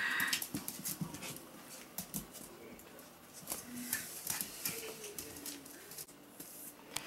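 Five-week-old Pomsky puppies moving about on a hard wood-grain floor, with scattered light clicks and taps of their claws and paws. A few faint, short puppy whimpers come in the second half.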